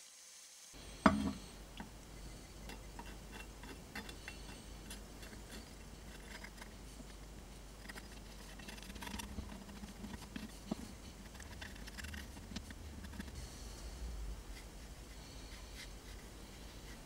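Hands handling small knife parts: faint scattered clicks, taps and light rustling over a low background hum, with one sharp knock about a second in.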